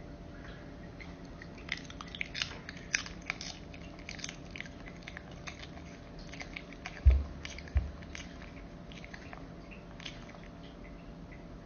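Chihuahua chewing cucumber slices: a run of short, crisp crunches. Two dull thumps, the loudest sounds, come about seven seconds in.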